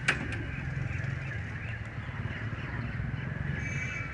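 Outdoor bird sounds: faint chirping over a steady low rumble, with a sharp click just after the start and a weaker one a moment later.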